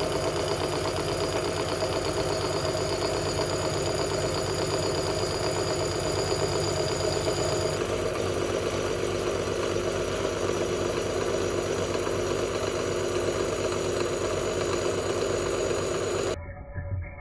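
Bridgeport milling machine running a 3-inch face mill across the top of a steel railroad rail: a steady, loud cutting noise from the spindle and the cutter biting the steel. It cuts off abruptly near the end.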